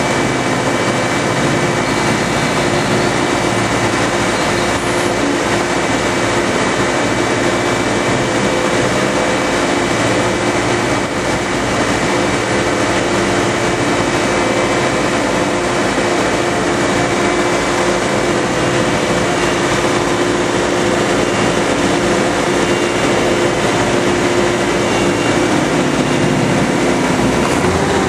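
125 hp hydraulic marine thruster running steadily, its propeller churning the water into foam: a loud constant mechanical drone with a steady whine over the rush of water.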